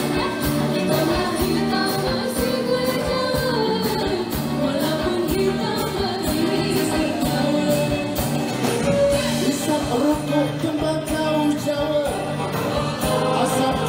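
A live band plays a Malay pop-traditional song with a singer over a steady drum beat.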